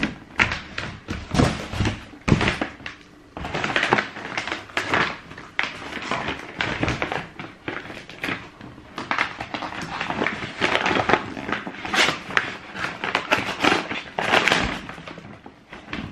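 Trainers and their cardboard shoe box being handled: a busy run of rustles, taps and thunks.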